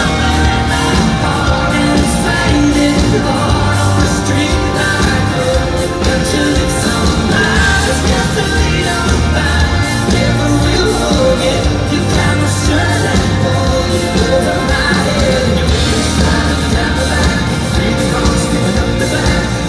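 Live rock band playing: electric guitars, bass and drums with a male lead vocal singing over them, loud and continuous.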